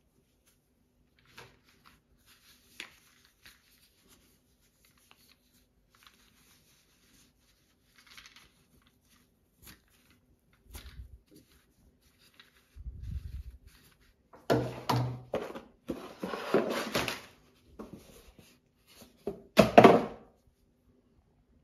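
Unboxing handling noise: gloved hands rustling a cloth drawstring pouch and plastic and bubble-wrap packaging on a wooden table, with scattered small clicks, a couple of low thuds past the middle, and louder bursts of crinkling in the last third.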